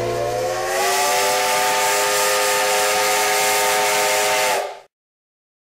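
A steam locomotive's whistle blows one long blast, several tones sounding together over a strong hiss of escaping steam. The pitch rises slightly as it starts, and the blast cuts off abruptly about four and a half seconds in.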